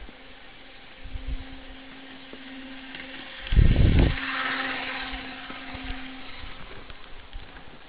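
HO scale Brilliner model trolley running on sectional track, its small electric motor humming steadily. A loud rumble comes about three and a half seconds in as it passes close to the microphone, followed by a fading rattle of wheels on rail.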